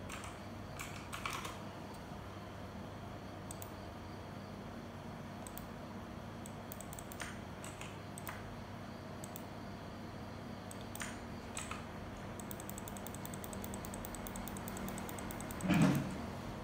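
Typing on a computer keyboard: scattered keystrokes, then a fast run of clicks about three-quarters of the way in, over a low steady hum. Near the end there is one louder thump.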